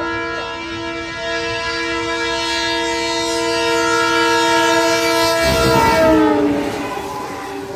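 Railway locomotive's horn sounding in one long blast as a warning at a level crossing. About six seconds in, the locomotive passes: the horn's pitch drops and a loud rush of engine and wheel noise sweeps by.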